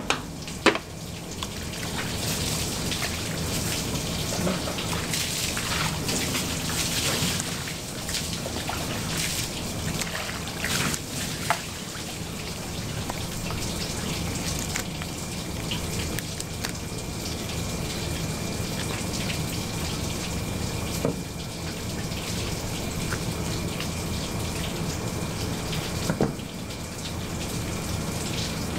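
Water running steadily from a tap, with a few short sharp knocks on the cutting board. A faint high steady tone comes in about halfway through.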